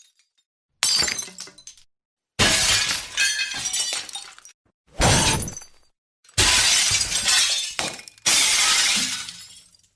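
A series of five glass-shattering sound effects, one after another with short silent gaps: each a sudden crash of breaking glass followed by tinkling shards that fade out over a second or two.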